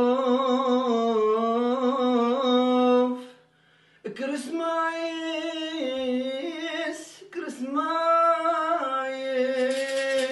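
A man singing alone, holding long, wavering, ornamented notes without accompaniment, with a short break about three seconds in. A tambourine starts shaking in rhythm near the end.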